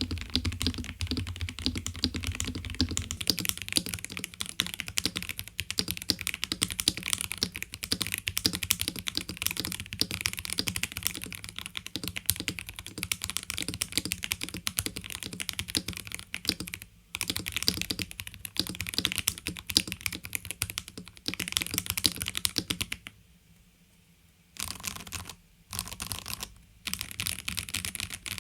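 Fast, continuous typing on a stock Dukharo VN66 mechanical keyboard, with a snap-on plastic case, poron foam under and above the PCB, and factory-lubed plate-mount stabilizers. The keystrokes run in a steady stream, stop for about a second near the end, then come in a few short bursts.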